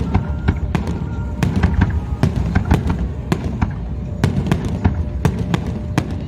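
Aerial fireworks going off in a rapid, irregular series of sharp bangs and crackles, several a second, over a continuous low rumble.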